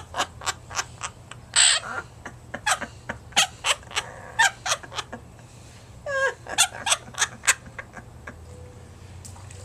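Quaker parrot (monk parakeet) giving a rapid run of short, sharp squawks and chirps, about two or three a second, which stops about two seconds before the end.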